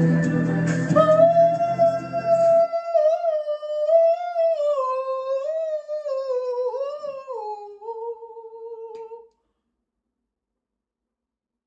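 A pop song plays with full backing, which drops out about two and a half seconds in. That leaves one high voice singing unaccompanied, a long wavering note that slides down, which stops about nine seconds in.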